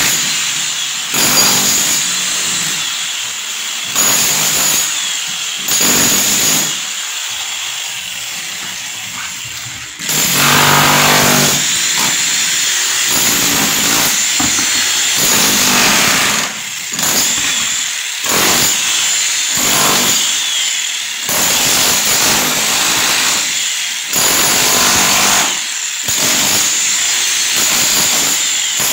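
A handheld power tool running in repeated bursts of one to three seconds, stopping and starting again over and over.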